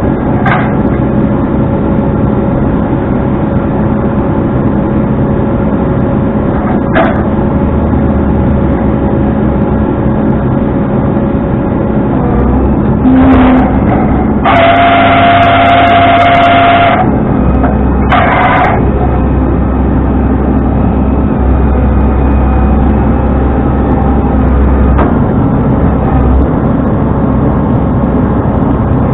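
Tow truck running steadily on the road with engine and road noise. About halfway through a vehicle horn sounds: a short beep, then a long one of about two and a half seconds, then another short beep.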